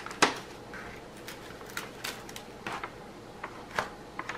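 Paper release sheet on a diamond painting canvas rustling and crinkling in short, scattered crackles as it is handled and lifted off the glue, the sharpest crackle about a quarter second in.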